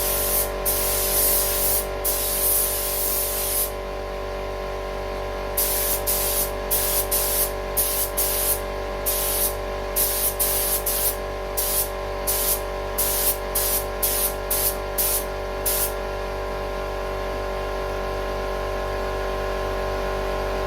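2K lacquer being sprayed onto a headlight lens. A few long hissing sprays come first, then a quick run of about fifteen short bursts that stops about three-quarters of the way in. A steady hum runs underneath.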